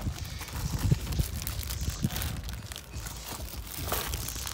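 A clear plastic bag crinkling and a cardboard box rustling as items are handled and lifted out of the box, a string of light crackles and rustles.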